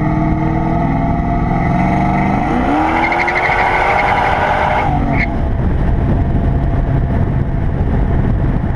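LS-swapped Chevy C10 pickup's 5.3 V8 running on the road, its engine note climbing in pitch two to three seconds in as it accelerates. About five seconds in the engine note drops away, leaving a steady rumble of tyres and wind.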